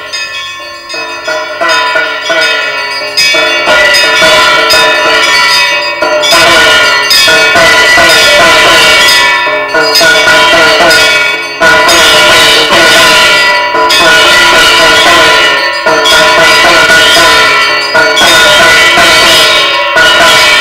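Temple bells rung over and over during puja, their ringing tones overlapping densely, with other music mixed in.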